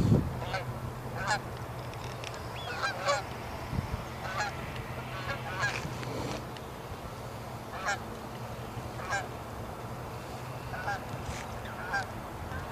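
Geese honking repeatedly, short calls about once a second, over a faint steady low hum.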